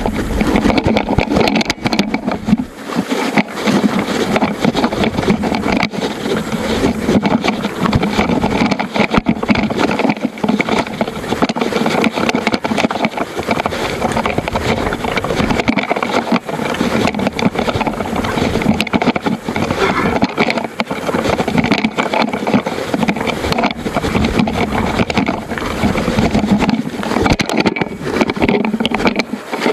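A loose action camera rattling and scraping against a mountain bike as it is ridden, with dense, uneven knocks throughout. The camera mount is broken, so the camera shakes freely.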